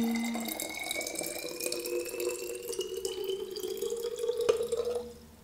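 Distilled water poured from a plastic measuring jug into a small amber glass bottle: a steady trickle whose pitch rises as the bottle fills, with a light knock about four and a half seconds in before the pour stops.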